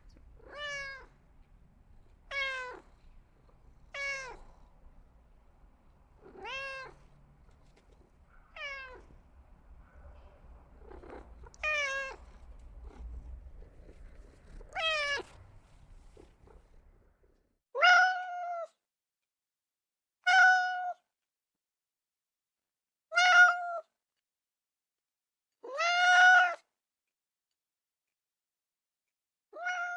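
A domestic cat meowing over and over, about a dozen short meows two to three seconds apart. About 17 s in, a faint background hum stops and the meows become louder.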